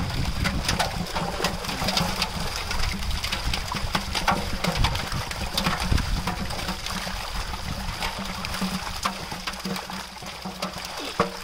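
Water splashing and sloshing as live fish thrash in a drag net in shallow water and are handled, with many irregular sharp splashes. A steady high-pitched whine runs underneath.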